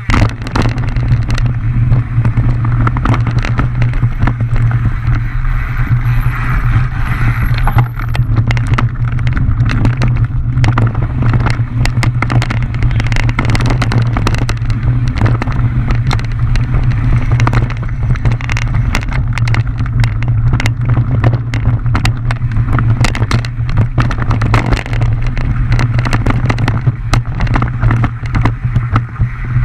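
Mountain bike riding fast downhill over rough trail: a steady low rumble with constant irregular clatter and knocks from the bike bouncing over the ground.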